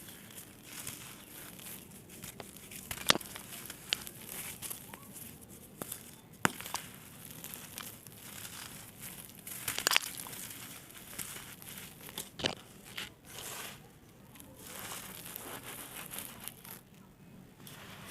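Small dried red sand-clay blocks being crushed and crumbled: a steady gritty crackle broken by a sharp, crisp pop every few seconds.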